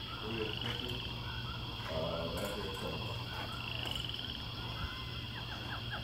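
Repeated short chirping calls with two quick rising trills, over a steady low hum.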